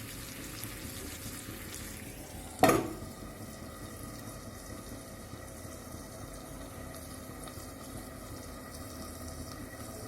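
Chicken skewers sizzling gently on a tawa under a lid, with one sharp clank about two and a half seconds in that rings briefly.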